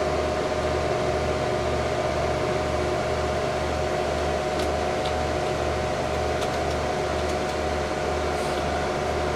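HP Pavilion A1210N desktop PC's cooling fans running steadily: an even whir with a few held tones over a low hum that pulses two to three times a second. A few faint clicks come in the second half.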